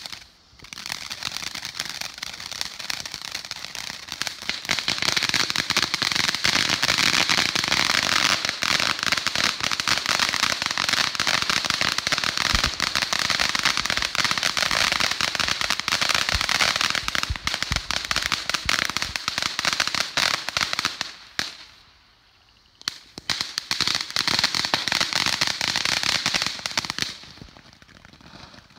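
Ground firework fountains spraying sparks: a loud, steady hiss packed with rapid crackles. It breaks off briefly about three-quarters of the way through, starts again, then dies down near the end.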